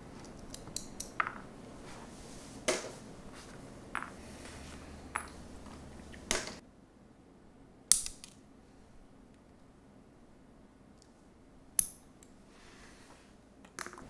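Scattered sharp clicks and light clinks of small hard parts, keyboard switches, LEDs and metal tweezers, being handled and set down on a desk, with two louder clicks near the middle and near the end.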